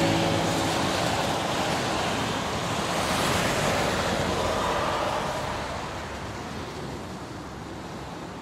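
Steady rushing noise with no tune in it, swelling slightly about three seconds in and then fading out over the last few seconds.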